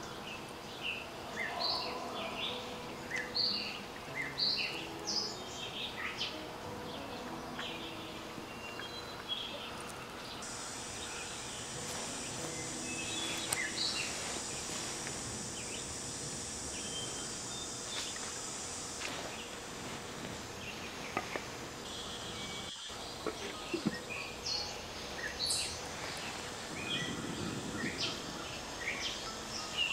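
Outdoor ambience of many short bird chirps. A steady high insect drone joins about ten seconds in, fades near the twentieth second, and returns more weakly later.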